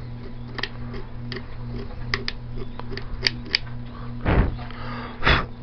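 Razor blade scraping at the Flexwatt heat tape's copper bus bar, heard as scattered sharp ticks and scratches over a steady low hum. Two duller knocks come near the end.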